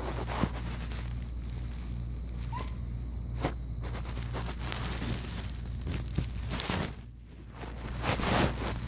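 Rustling and crinkling handling noise from a phone held close to carpet, with a few sharp clicks over a steady low hum; the rustling swells loudest near the end as the phone is moved.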